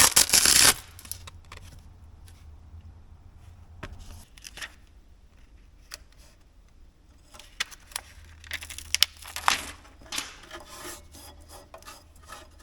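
Hook-and-loop sanding disc and its adhesive-backed mounting pad being handled and worked on the sander's disc. Two loud scratchy bursts, one at the start and one about nine seconds in, with light rubbing and taps between.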